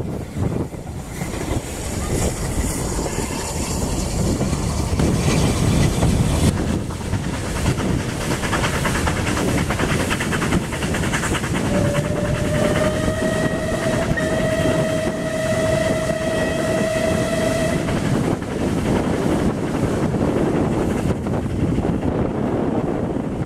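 Heritage steam train running, heard from a carriage window as a steady rumble of rail and running noise. About halfway through, the locomotive whistle sounds one long steady note lasting about six seconds.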